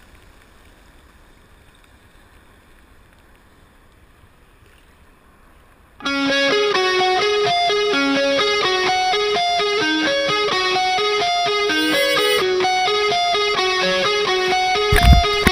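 Background music: a bright plucked-guitar tune of quick, repeating notes starts abruptly about six seconds in, after a few seconds of faint wash of water. A short loud thump cuts across the music near the end.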